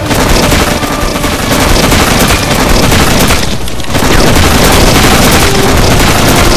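Dense, continuous rapid gunfire with booming blasts, getting louder about four seconds in.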